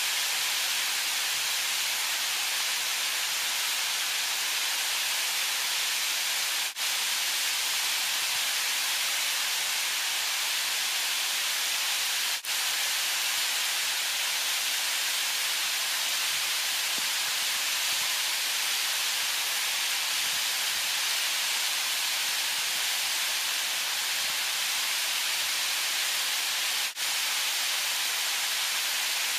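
Waterfall rushing: a steady, even hiss of falling water that drops out for an instant three times.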